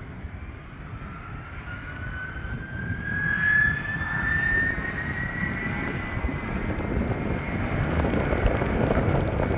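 Airbus A300F4-605R freighter's twin turbofan engines running at takeoff power, with a jet whine rising steadily in pitch over several seconds above a low rumble that grows louder.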